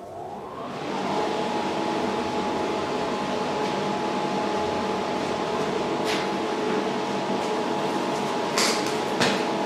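An electric fan motor spins up over about a second, rising in pitch, then runs steadily with a whirring hum. A few light clicks come near the end.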